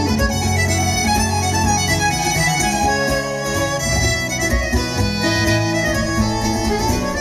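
Folk music played live by a violin, bowing a melody over held low accordion notes.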